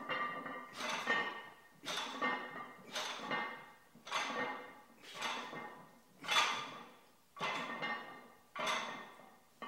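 Gym weights clanking metal on metal about once a second, each clank ringing briefly before the next, as a set of back-exercise reps is worked through.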